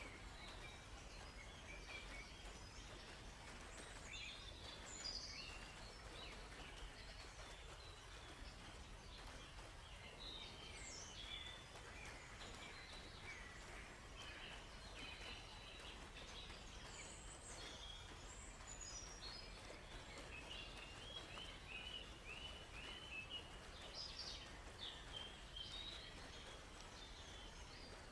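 Several songbirds chirping and calling, faint, with short notes scattered throughout and a quick run of repeated notes about three quarters of the way through, over a steady background hiss.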